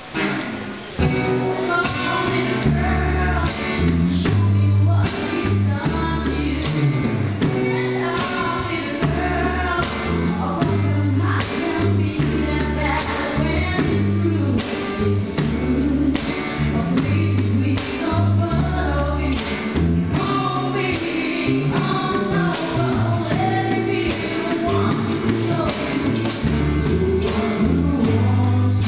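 Live band music: acoustic guitars strumming, several men singing together into microphones, a deep bass line, and percussion keeping a steady beat.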